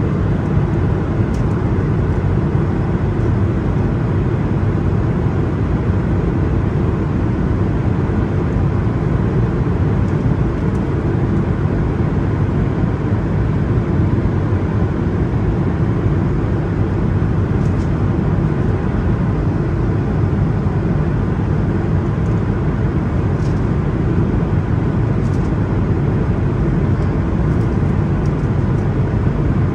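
Steady cabin drone of an Airbus A220-300 in flight, heard from inside the passenger cabin: a low, even rumble of the engines and airflow.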